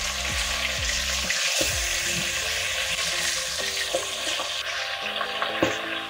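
Ari fish pieces, rubbed with salt and turmeric, frying in hot mustard oil in a lidded wok: a steady sizzle with a few sharp pops of spitting oil.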